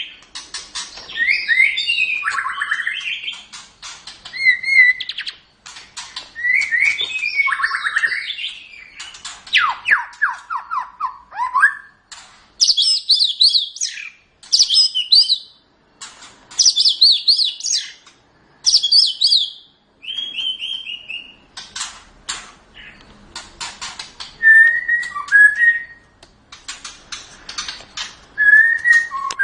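White-rumped shama (murai batu) singing a long, varied song in phrases of a second or two with short pauses: clear whistles sliding up and down, fast high trills about halfway through, and sharp clicking notes between phrases.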